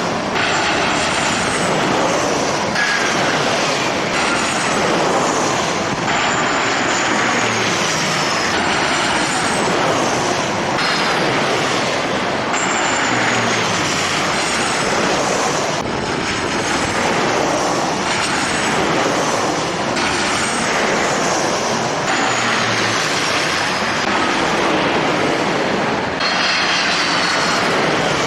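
Jet airliner engines running, a loud steady rushing noise with high whines that keep sliding down in pitch.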